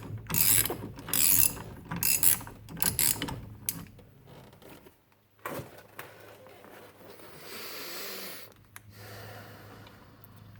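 Half-inch-drive ratchet with a 15/16 socket clicking through repeated strokes as the steering-wheel nut is loosened. The strokes are loudest in the first few seconds, then fainter and more scattered.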